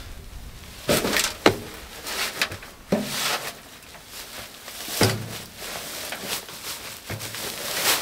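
Soil tipped and shaken out of woven potato-growing sacks into a metal wheelbarrow: rustling sack fabric, pouring soil and dull thuds in repeated bursts every couple of seconds, with a sharp knock about a second and a half in.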